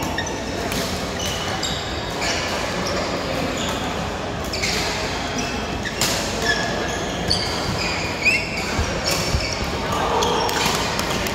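Badminton being played indoors: sharp racket hits on shuttlecocks and brief squeaks of court shoes on the floor, over general chatter of players.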